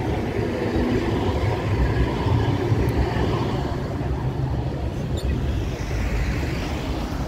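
An Amsterdam tram passing close by on its street track: a low rumble that is strongest in the first half, over general street noise.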